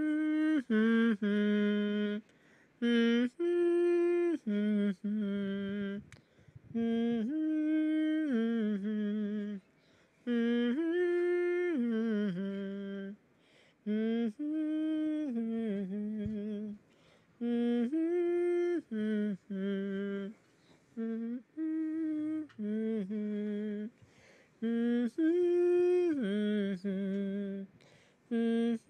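A person humming a slow, lullaby-like tune in short phrases of held notes, with brief pauses between phrases.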